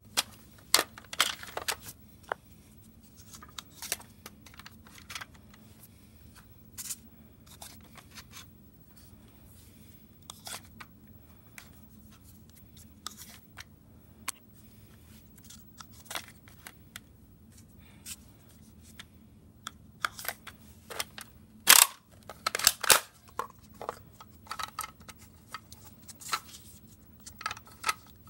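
Plastic clicks, rattles and knocks from Nerf blasters being handled close up, a Maverick's revolving cylinder and a Recon with its clip. The clicks are scattered, with a denser run of sharp, loud ones about 22 seconds in.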